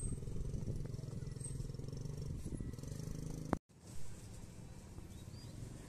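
A steady low engine hum from a running vehicle, with an abrupt cut a little past halfway through, after which the hum carries on slightly quieter.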